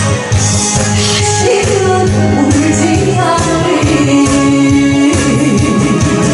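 Music with a voice singing over a steady accompaniment.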